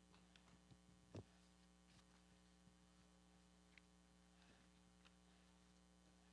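Near silence: a steady low electrical hum, with a few faint scattered clicks and one short soft thump about a second in.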